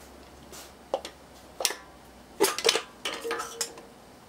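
Metal engine parts clinking and knocking together as they are handled and set down: a scatter of sharp clinks, busiest in the middle, with a short ringing note a little after three seconds in.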